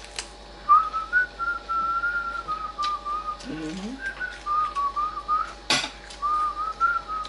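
A person whistling a wandering tune in short phrases, with cutlery and dishes clinking on the table; one sharp clink stands out about three-quarters of the way through.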